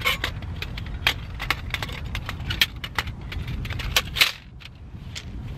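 Thin titanium panels of a Bushbox XL stove clinking and tapping together as they are handled, a quick run of small metallic clicks over a steady low rumble.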